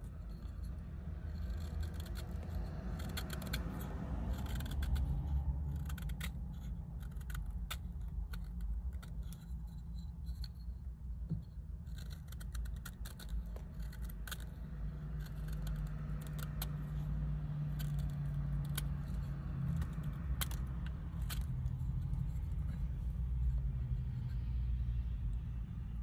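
Folding pocket-knife blade whittling a cedar carving: a run of short, crisp cuts and scrapes as slivers are shaved off the wood, over a low steady rumble.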